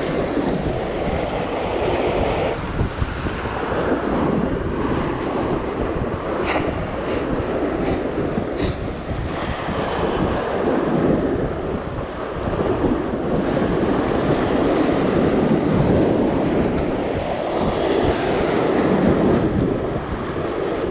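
Sea waves surging and splashing against a concrete sea wall, the wash rising and falling every few seconds, with wind buffeting the microphone.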